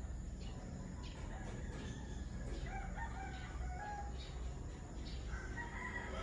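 A rooster crowing faintly over a low steady hum, its call becoming clearer from about halfway through.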